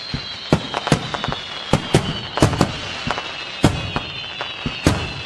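Fireworks exploding: a string of sharp bangs, about two a second and irregularly spaced, with a steady high tone running underneath.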